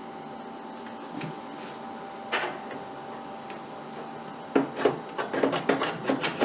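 Needle-nose vise grips clicking and scraping against the broken-off stub of a handle bolt as the jaws fail to hold it: a few single clicks, then a quick irregular run of metal clicks over the last two seconds, above a faint steady hum.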